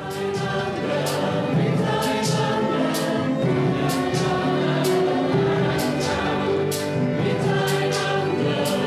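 A choir of many voices singing together in held notes at several pitches, with a crisp accent roughly once a second.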